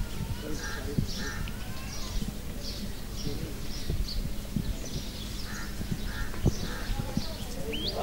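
Birds calling over and over in the background, above a crowd of goats shuffling and feeding at a fodder pile, with scattered knocks and rustles as they push against the pen rails.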